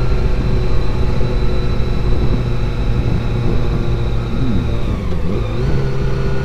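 Honda CBR400RR's inline-four engine running under way, heard through a helmet-mounted camera's microphone over a steady low rumble. About four and a half seconds in, the engine note dips and then climbs back.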